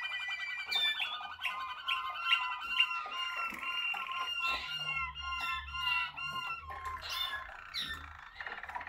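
Malinois Waterslager canary song: a continuous run of fast rolling trills and clear whistled notes, the pitch shifting from phrase to phrase.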